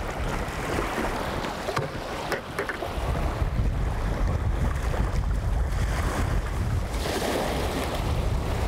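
Wind buffeting the microphone over small waves lapping a lakeshore, with a steady low rumble that grows stronger about three seconds in. A few light clicks sound around two seconds in.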